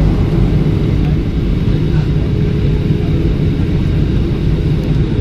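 Steady low rumble of jet cabin noise inside a Boeing 737-800 in flight: the CFM56-7B engines and the airflow over the fuselage.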